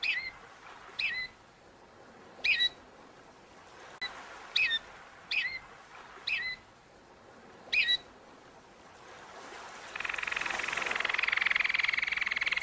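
A bird chirping: short, separate hooked calls, about eight of them, roughly a second apart. About ten seconds in, a fast, steady buzzing trill starts up and grows a little louder.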